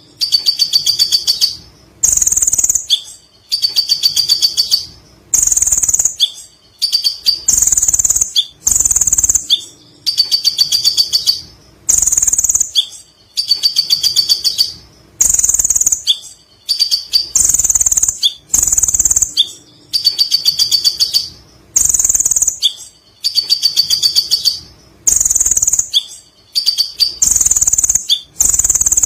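Kolibri ninja (sunbird) song: a high, rapid, stuttering trill in phrases about a second long, repeating roughly every two seconds. This is the lovebird-like 'ngekek' that the bird has learned as part of its song.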